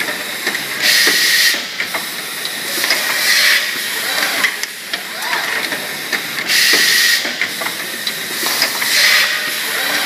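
Pneumatic packaging machine cycling: short bursts of compressed-air hiss come about every two to three seconds, with clicks and short rising-and-falling whines of moving parts between them.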